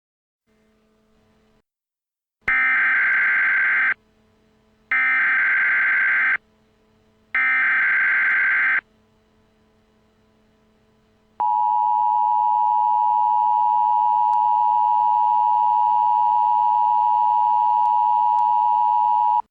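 Emergency Alert System signal: three data-burst header tones of about a second and a half each, a second apart, then the two-tone attention signal, a steady high dual tone held for about eight seconds, announcing an emergency alert broadcast.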